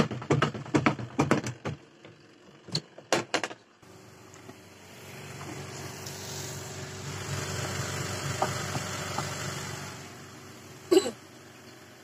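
Polytron PWM 7058 top-loading washing machine in an unbalanced spin, its tub banging hard and irregularly against the cabinet, several knocks a second, for the first three and a half seconds. Then a steady motor hum swells and dies away, and there is one short loud knock near the end.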